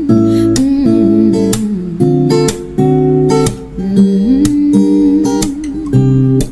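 Background music: an instrumental stretch of a slow song with an acoustic guitar strumming chords under a gliding melody line.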